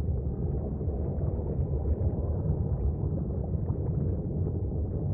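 A steady, muffled low rumble with no clear pitch.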